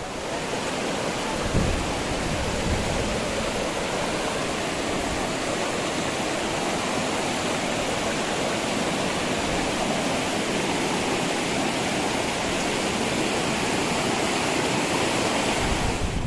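Steady, loud rush of the Jangkuk River's fast-flowing water, with a brief low thump about a second and a half in.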